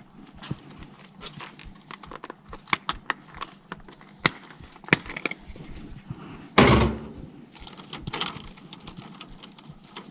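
Scattered sharp clicks and knocks of hands and tools handling hard parts, with one loud thump about two thirds of the way through.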